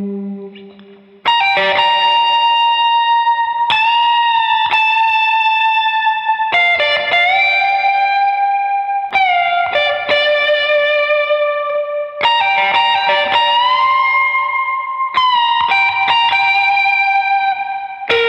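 Electric Strat-style guitar played through an effects pedalboard: a slow, singing lead line of single picked notes held long, with string bends and vibrato. A new note is struck about a second in and every one to three seconds after.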